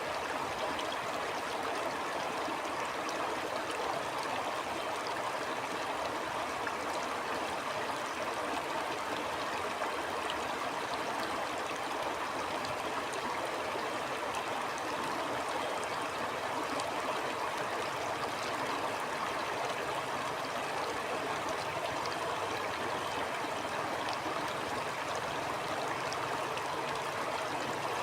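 Stream water flowing and gurgling steadily over rocks, an even rushing sound with light trickling splashes.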